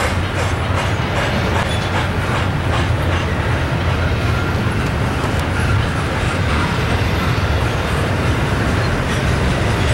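Double-stack container well cars of a freight train rolling past: a steady heavy rumble of steel wheels on rail, with faint irregular wheel clicks.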